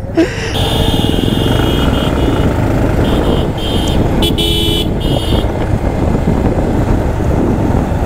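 Motorcycle riding off-road, its engine running under a steady rumble of wind and road noise. A high, thin tone comes and goes over the first five seconds.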